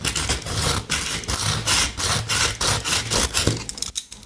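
Pocket knife blade drawn back and forth through a pull-through sharpener's grinding discs, used dry: quick repeated rasping strokes, several a second, stopping shortly before the end.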